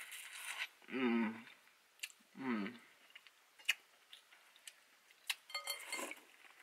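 Close-up mouth sounds of eating spicy cheesy ramen noodles: wet chewing and lip smacks with a few sharp clicks. Two short hums with falling pitch come about one and two and a half seconds in.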